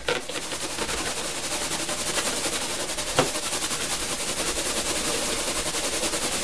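Two rubber balloons rubbed fast on a man's hair, a rapid, even run of rasping squeaks as they build up a static charge, with one sharper click about three seconds in.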